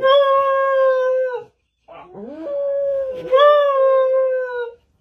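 Chihuahua howling: two long howls, the second opening with a rising glide and growing louder partway through.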